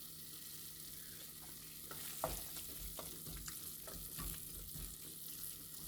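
Greens stew frying in a pot with a steady, faint sizzle; from about two seconds in, scattered knocks and scrapes of a spoon stirring against the pot.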